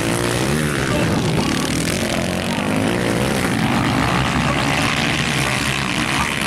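Motocross dirt bikes racing on a dirt track, engines revving up and down with the pitch rising and falling as the riders work the throttle through the turns.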